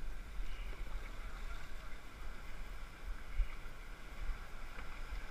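River water rushing and splashing around an inflatable raft running class III rapids, with a low rumble underneath and a brief thump about three and a half seconds in.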